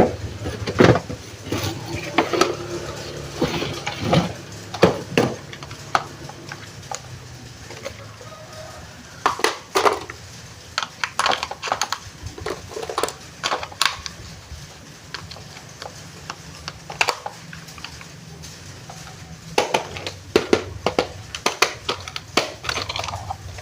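Plastic packaging and the toy RC car being handled: scattered irregular clicks, taps and light knocks, with a few small clusters of quick taps.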